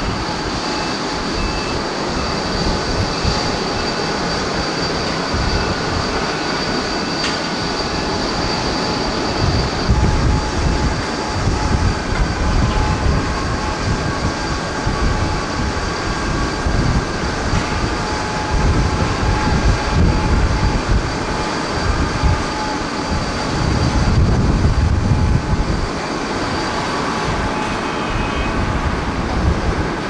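Airliner jet engines running, with heavy wind buffeting on the microphone. A steady high engine whine fades out about a third of the way through.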